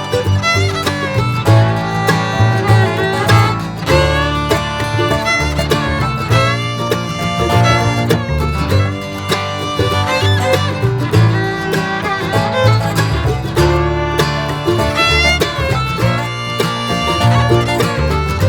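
Background music: an upbeat bluegrass-style tune with fiddle, guitar and banjo over a steady bass.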